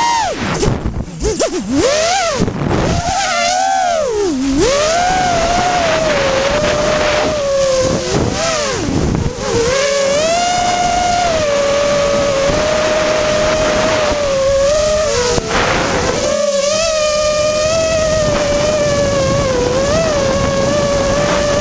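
Brushless motors and propellers of an FPV racing quadcopter, heard from the quad's onboard camera: a steady whine with a rushing hiss beneath it. The whine dips and swoops back several times as the throttle is chopped and punched through flips, most sharply in the first five seconds. It climbs steeply near the end.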